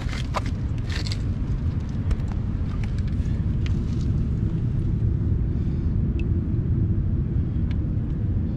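Wind buffeting the microphone: a steady low rumble, with a few light clicks in the first second or so.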